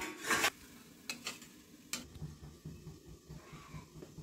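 A short clatter, then a few light clicks and clinks of steel kitchenware being handled.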